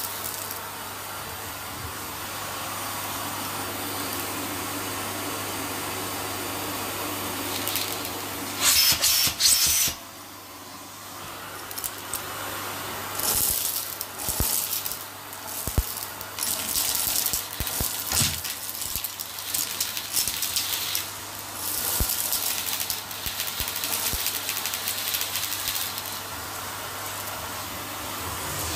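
Vacuum cleaner hose running and sucking up small beads, sequins and grit from carpet, the pieces rattling and crackling up the tube in irregular bursts. The loudest burst comes about nine seconds in.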